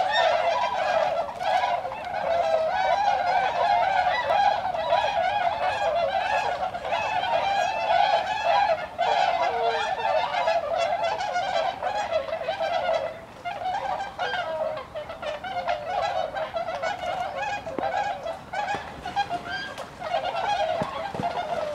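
A large flock of Bewick's swans (the Eurasian race of the tundra swan) calling, many birds at once in an unbroken chorus of overlapping calls that thins briefly about halfway through.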